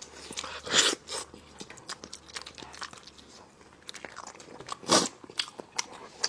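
Close-up eating sounds of a person biting and chewing spicy braised lamb on the bone, with sharp crunches of cartilage. Two louder crunching bursts come about a second in and about five seconds in.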